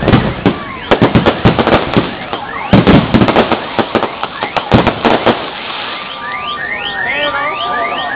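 Aerial fireworks fired at close range: a rapid barrage of sharp bangs and crackles that dies out about five seconds in. After it, an alarm keeps up, repeating a rising electronic chirp about three times a second over steady tones.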